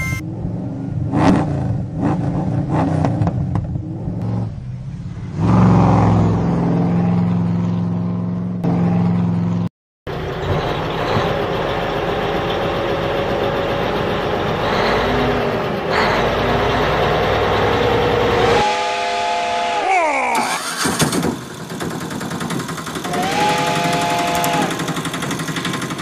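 Vehicle engine sounds running and revving, broken by a brief drop-out about ten seconds in, with a sweeping rise and fall in pitch about twenty seconds in.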